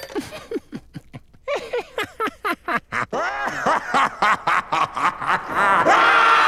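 A cartoon character's voice laughing in a run of short bursts, with music coming in near the end.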